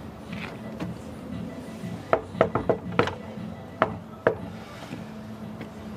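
Knuckles knocking on a wooden front door: a quick run of about five knocks, then two more single knocks.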